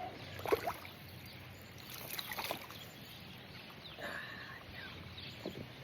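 Water splashing and sloshing in a few irregular bursts beside a stand-up paddleboard as a hooked smallmouth bass is drawn in to be landed.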